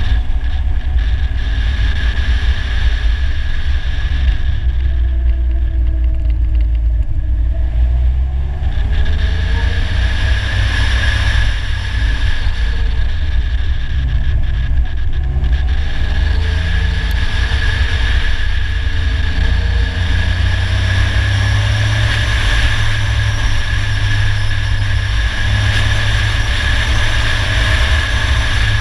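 Polaris Slingshot roadster driving along a winding road: its engine note rises and falls several times with the throttle, over a heavy low rumble.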